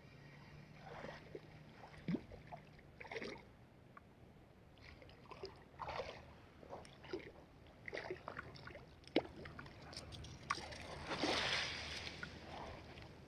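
Light, irregular water splashing and sloshing as a small hooked fish is played in at the shore's edge, with a longer, louder bout of splashing near the end as it is drawn into the shallows.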